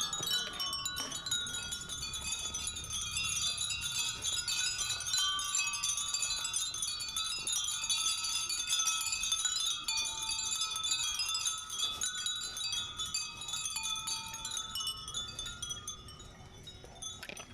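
Many Japanese wind bells (fūrin) tinkling together, a dense, steady shimmer of overlapping high ringing tones that grows a little fainter near the end.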